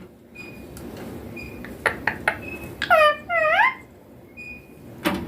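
Indian ringneck parrot giving two quick calls about three seconds in, each dipping in pitch and then rising. Several sharp clicks come just before the calls and again near the end.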